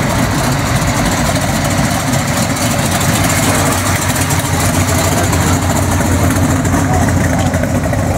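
Engine of a black '32 Ford sedan hot rod idling steadily as the car rolls slowly past.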